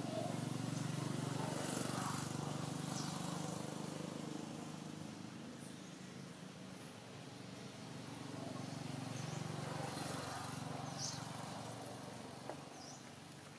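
Low engine hum of motor vehicles in the background, swelling near the start and again about two-thirds of the way through.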